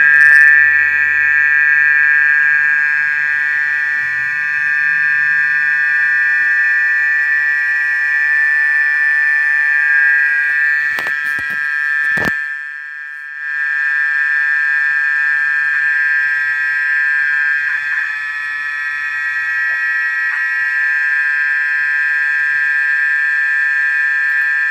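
Loud, steady, high-pitched buzzing drone that holds one pitch throughout, offered as the strange sound from the ground heard after the earthquake. It has a couple of sharp clicks and a brief dip in level about halfway through.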